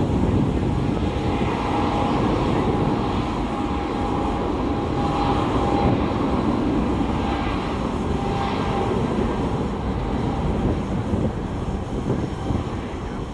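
Jet airliner engines running: a steady low rumble with a held whine on top.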